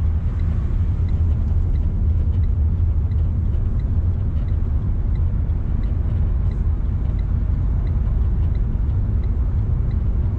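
Steady low rumble of engine and road noise heard inside a Renault car's cabin while driving, with a faint, even ticking.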